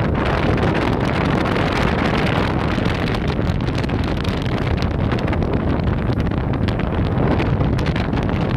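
Wind buffeting the microphone aboard a moving boat, a steady rushing noise with the boat's engine and churning water underneath.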